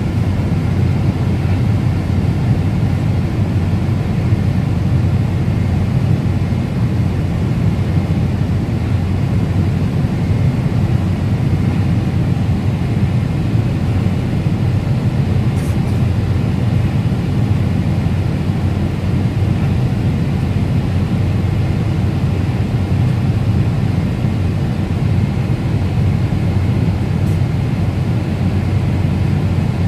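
Steady cabin noise of a Boeing 747-8 Intercontinental in cruise: an even, low rush of airflow and engine noise.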